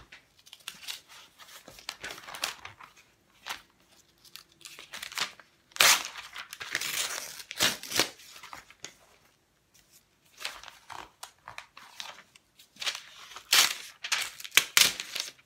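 Thin dictionary pages being torn out of the binding by hand, in irregular short rips and paper rustling, leaving jagged edges. The loudest rips come about six seconds in and again near the end, with a lull in between.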